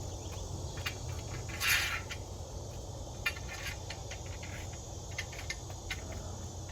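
Hurricane-shutter track bolts being slid into a metal footer track, giving light clicks and ticks and a short scrape about two seconds in, over a steady low hum.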